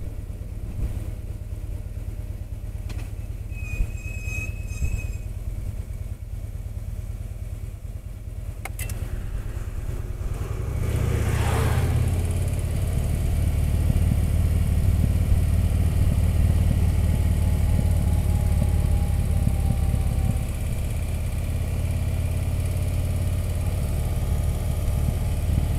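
Touring motorcycle engine running at cruising speed with road and wind noise. Its low drone gets clearly louder about ten seconds in and then stays steady.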